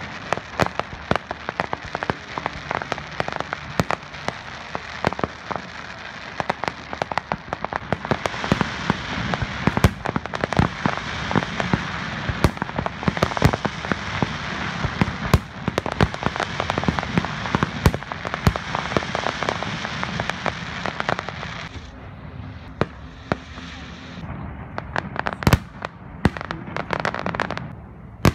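Aerial fireworks going off: a dense barrage of bangs and crackling from bursting shells, thinning to a few separate bangs in the last few seconds.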